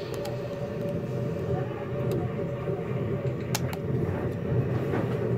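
Steady low rumble and hum, with a few light clicks as a flat ribbon cable is handled and seated in its circuit-board connector, the sharpest about three and a half seconds in.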